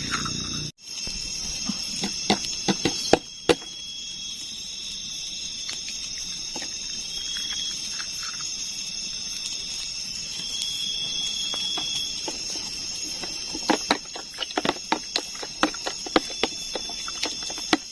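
Steady high-pitched chorus of night insects such as crickets, with scattered sharp clicks and taps of camp cooking utensils, bunched around a few seconds in and again near the end.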